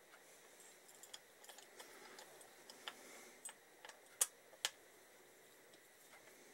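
Light metal clicks and taps as an Allen key and new Allen bolts are worked into a motorcycle brake master cylinder on its footrest hanger, a dozen or so small ticks with two sharper clicks a little past the middle.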